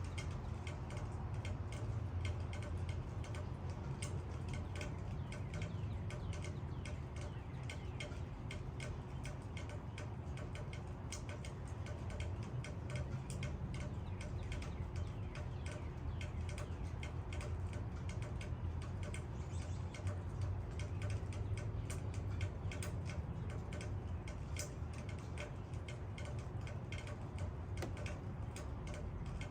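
Rain falling, with many irregular ticks of individual drops striking leaves over a low, steady rumble.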